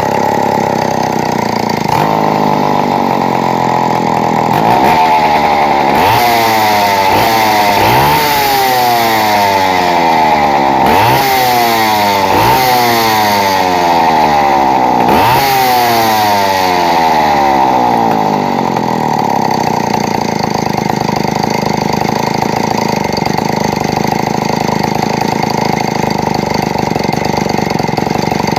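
Two-stroke chainsaw engine running. From about five seconds in to about seventeen it is revved about six times, each rev rising quickly and falling back more slowly, and then it settles to a steady idle.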